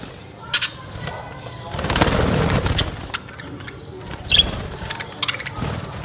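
Budgerigars chirping and chattering, with sharp high calls and a burst of wing flapping about two seconds in.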